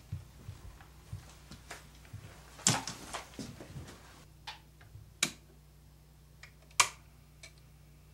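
Scattered sharp clicks and light knocks of handling over a faint low hum, the sharpest about five and seven seconds in. The later clicks come as a record player's tonearm is handled.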